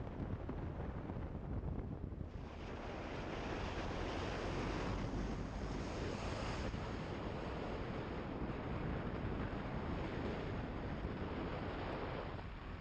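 Wind rushing over the microphone of a camera on a moving motorcycle, a steady noisy roar that grows brighter about two seconds in.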